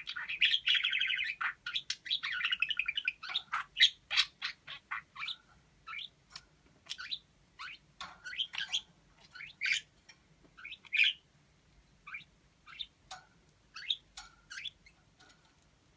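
Pet parakeet vocalizing: a buzzy, rapidly pulsing chatter for the first three seconds or so, then a string of short, sharp chirps and clicks with gaps between them, growing sparser toward the end.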